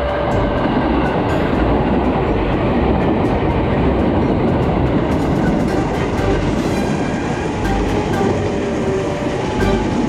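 KRL commuter electric train of 205-series cars passing close by, a loud, steady rumble of wheels running on the rails with some clickety-clack.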